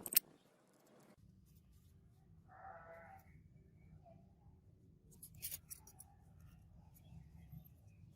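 A sharp click, then a short animal bleat about two and a half seconds in and a few light clicks around five and a half seconds, over a low steady hum.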